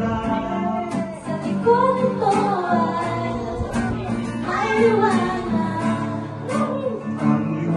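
A young woman singing into a microphone, accompanied by a strummed acoustic guitar.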